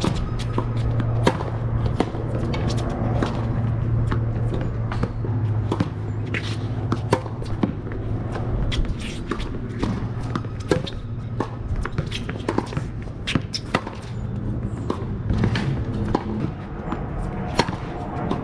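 Tennis rally on a hard court: a run of sharp, irregular pops as the ball comes off the racket strings and bounces on the court, over a steady low hum.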